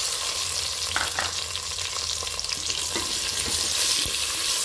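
Whole small onions (shallots) frying in hot coconut oil in a pressure-cooker pot, a steady loud sizzle, with a few light knocks in the pan about one, three and four seconds in.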